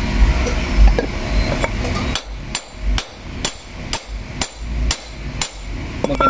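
A hammer striking a metal driver held on top of a car's wheel hub bearing assembly, about eight evenly spaced blows, roughly two a second, starting about two seconds in, seating a part onto the hub.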